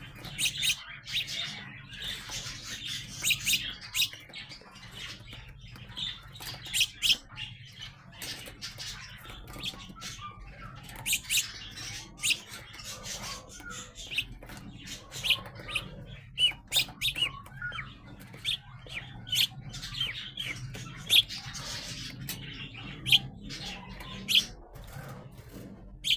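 Young sparrows chirping: many short, sharp chirps in quick irregular runs, over a low steady hum.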